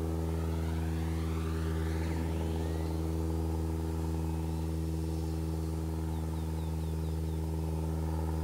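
RC foam plane's electric motor and propeller whining as it flies, the pitch sliding up and down as it passes early on. Under it runs a steady, unchanging low hum that is the loudest sound throughout.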